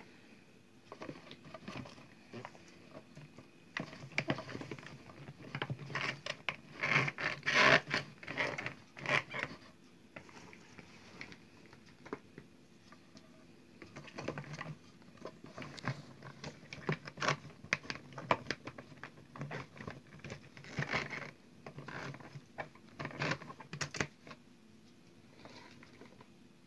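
Fresh yellow peppers being packed by hand into a large plastic jar for pickling. The peppers rustle and scrape against each other and the jar's plastic walls in irregular bursts of clicks and crackles, with a short lull partway through.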